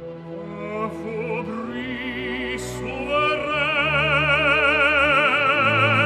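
Operatic tenor singing with orchestra. The voice enters about a second in and climbs. From about halfway it holds a loud high note with wide vibrato over sustained orchestral chords.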